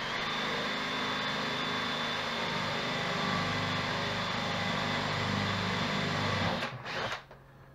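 Electric drill running steadily with a constant whine as it bores into a wooden slat, stopping about six and a half seconds in, then a brief second burst of the drill just after.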